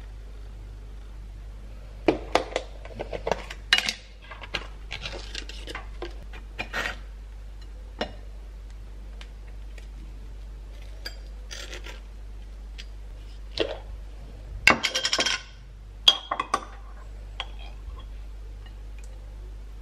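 Table knife clinking and scraping on a ceramic plate and in a glass jam jar while spreading cream cheese and jam on toast: scattered sharp taps and short bursts of scraping, over a faint steady low hum.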